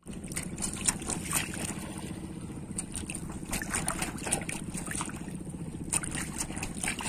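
Small waves in shallow water lapping and splashing against floating balloons, with irregular sharp splashes over a steady fluttering low rumble.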